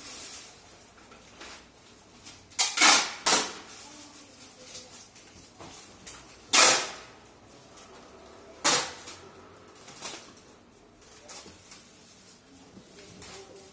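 Packing by hand: plastic-wrapped goods and bags rustling as they are moved into a cardboard box, with four sudden loud noises, two close together about three seconds in, then one near six and a half seconds and one near nine.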